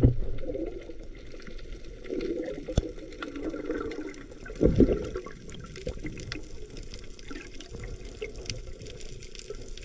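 Muffled water sound in a spearfisher's sea swim, heard through a submerged camera: a steady low wash with scattered sharp clicks, and a louder gush about five seconds in.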